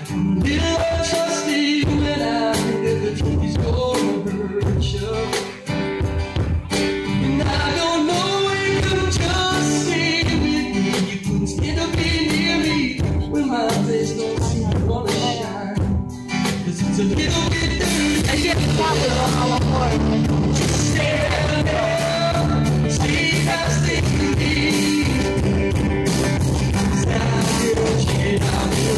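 Live rock band playing on stage: drum kit, acoustic guitar and electric guitars. The sound grows fuller and steadier about two-thirds of the way through.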